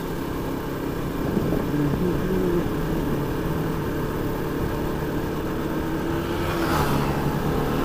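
KTM RC motorcycle's single-cylinder engine running at cruising speed under light throttle, with its pitch shifting a little. Wind rushes over the microphone.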